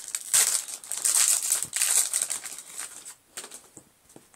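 Foil Pokémon booster-pack wrapper crinkling as it is torn open by hand, a run of rustles that dies away about two and a half seconds in, with one short sharp crackle a second later.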